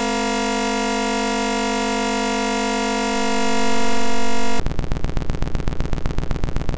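Synthesized oscilloscope-art audio: a steady, buzzy electronic drone of many stacked tones that switches abruptly, about two-thirds of the way in, to a fast pulsing buzz of about eight pulses a second.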